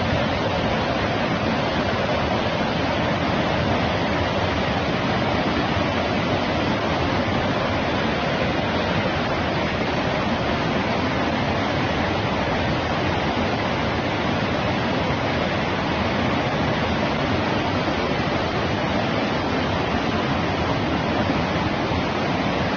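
Floodwater rushing steadily, a dense unbroken wash of water noise.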